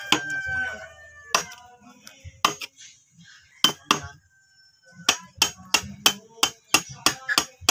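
Hammer striking a wood chisel, cutting notches into a soft gmelina wood beam: sharp single knocks. They are spaced at first, then after a short pause around the middle come faster, about three a second.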